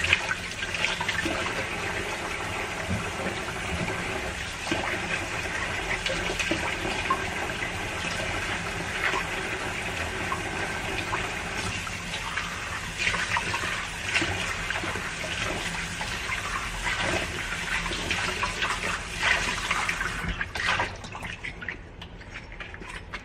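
Tap water running into a sink as a drinking glass and the sink around it are rinsed of glass dust from sanding, with a few small knocks and splashes; the flow stops near the end.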